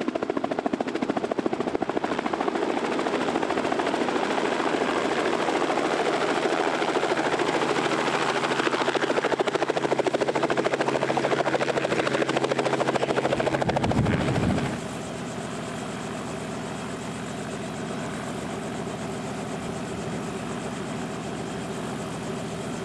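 Helicopter running, with a steady, fast rotor chop and engine drone. About fourteen seconds in it changes abruptly and goes on noticeably quieter.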